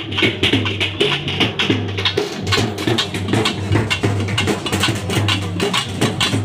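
Procession drumming on barrel drums: a fast, steady rhythm of sharp strokes, several a second, over a low pulsing tone.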